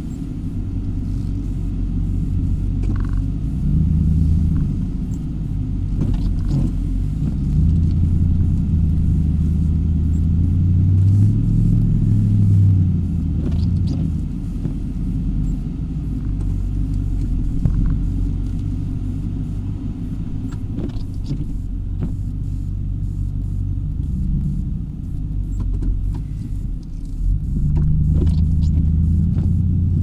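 Plow truck's engine running, heard from inside the cab, its low hum rising and falling several times as the truck is driven and pushes snow, with a few faint knocks.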